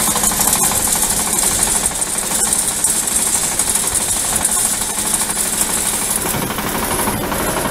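Shifeng SF-350L mini tractor's diesel engine running steadily under load while it pulls a wheel rake tedding hay, a fast, even pulsing with a hiss over it.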